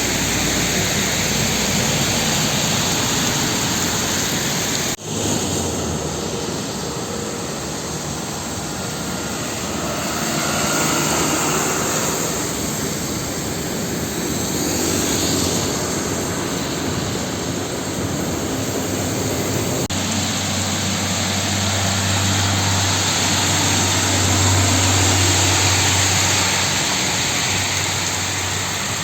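Heavy rain and the hiss of tyres on a wet road as trucks pass, with a truck engine's low drone coming up strongly in the last third. The sound cuts abruptly twice.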